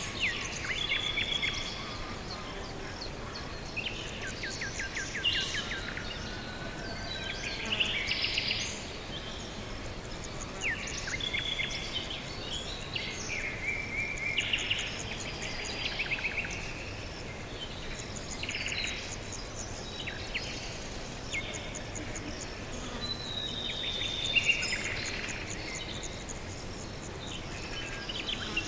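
Several songbirds singing and chirping, with quick trills and short whistled notes, over a steady soft background hiss.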